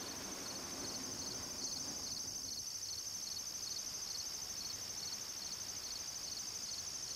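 Insects chirring steadily in a high pitch, with an even pulsing beat running through the song. A faint low hum fades out in the first two seconds or so.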